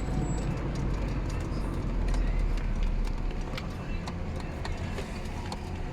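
Cab noise of a GAZelle van: a steady low drone with irregular light clicks and rattles over it.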